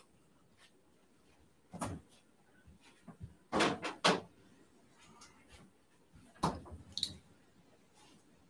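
A handful of short, separate knocks and clunks of household handling, a second or two apart, with two close together near the middle and two more near the end.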